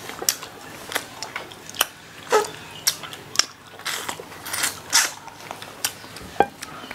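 Close-miked eating of fried chicken: crunching and chewing heard as a rapid, irregular series of sharp crackly clicks.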